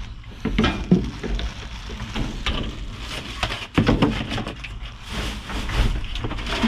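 Plastic wrappers, bags and cardboard rustling, crinkling and knocking irregularly as trash is shifted by hand.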